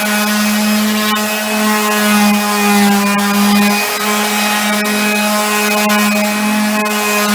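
Electric power sander running steadily on a solid oak worktop: a steady motor hum with the hiss of abrasive on wood, briefly dipping about four seconds in.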